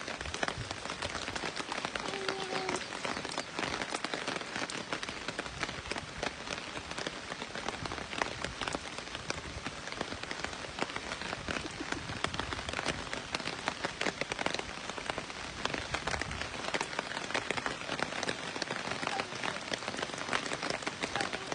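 Steady rain falling on a wet paved driveway and puddles: a dense, even patter of drops.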